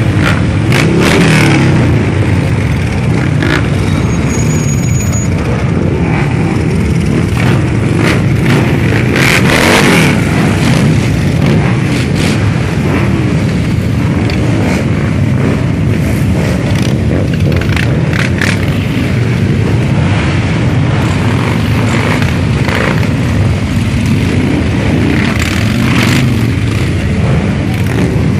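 A procession of large cruiser motorcycles riding past one after another, their engines running loudly, with revs rising and falling as individual bikes pass.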